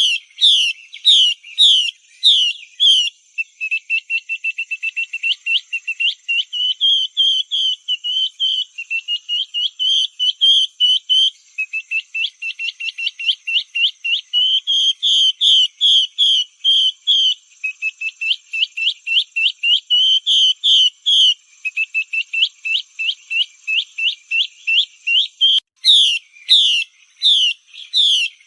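Female hwamei (Chinese melodious laughing thrush) calling, the kind of call played to draw male hwamei into song. It gives a steady run of whistled, up-slurred notes, a few a second, then long fast series of short repeated notes. The slower notes come back near the end.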